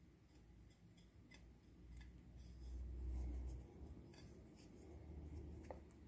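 Faint scratchy rustling and light clicks of fingers pressing skewered raw chicken into dry ground suya spice on a plate, with a low rumble of handling in the middle.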